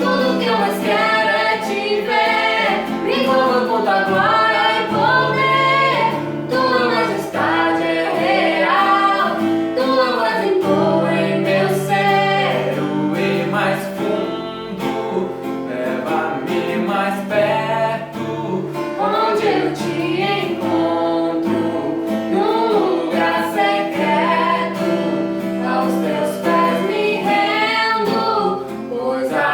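A woman singing a Portuguese-language gospel worship song over an instrumental accompaniment of held chords.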